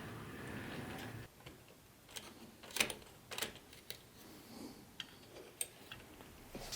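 A small HO-scale electric model train running on its track with a steady rumble that stops about a second in. It is followed by a series of sharp, irregular light clicks and taps.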